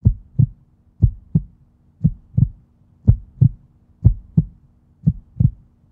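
Heartbeat sound effect: paired lub-dub thumps about once a second, over a faint steady hum.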